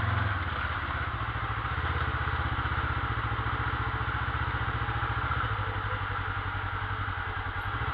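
ATV engine running steadily at low revs with a fast, even putter, a little louder at the start and again near the end.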